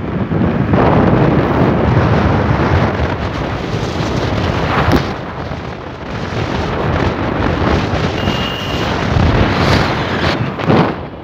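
Wind buffeting the microphone of a phone held out from a moving motorcycle: a loud, uneven rumbling rush that swells and dips.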